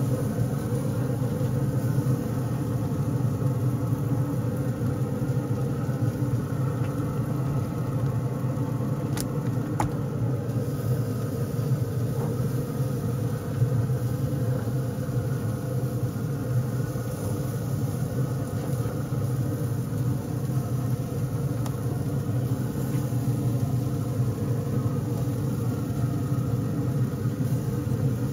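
A steady low rumble of an idling engine, with two sharp clicks about nine and ten seconds in.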